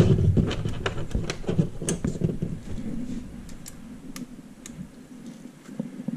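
Light, irregular metal clicks and taps of a hand Allen key being picked from a set of hex keys and fitted to the bolts of a Double 1 robot's wheel hub. The clicks come thickly in the first couple of seconds, then thin out.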